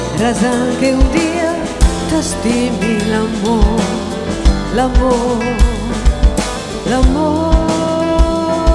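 Live jazz band music from electric piano, guitar, electric bass and drums, with a melody line that slides and wavers in pitch over low, regular thumps.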